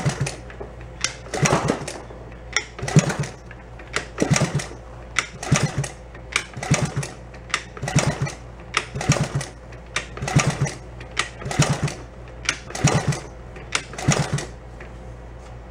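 Old Honda 50 monkey bike's small single-cylinder engine being kicked over again and again without firing, a sharp mechanical clatter about once a second.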